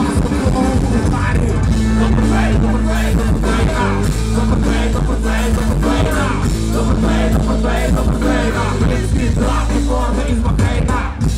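Live rock band with a brass section playing loudly: drums, bass guitar, keyboards, trombone and trumpet over a heavy steady bass, with the singer's voice over the band through the stage PA.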